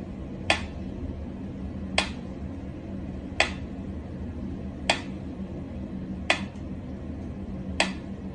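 Mechanical pyramid metronome ticking slowly and evenly, one sharp tick about every one and a half seconds, six ticks in all.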